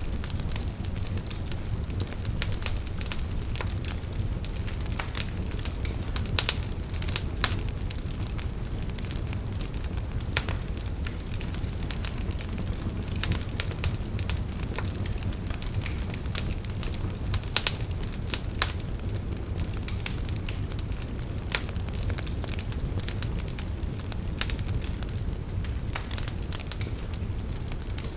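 Wood fire burning: a steady low rumble of flames with frequent sharp, irregular crackles and pops from the burning wood.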